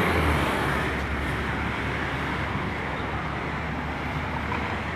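Steady road traffic noise: a continuous hum and hiss of passing cars, a little louder in the first second.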